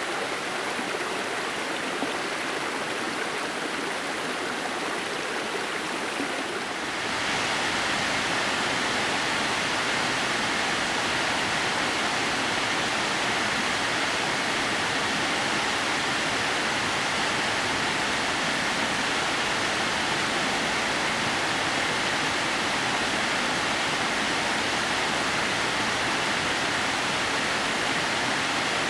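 Waterfall rushing steadily, water streaming down a rock face in thin threads. The sound grows louder and fuller about seven seconds in.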